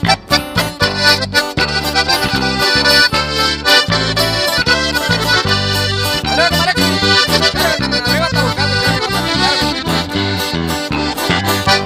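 Instrumental break of a sierreño corrido: accordion playing the melody over low bass notes on a steady beat.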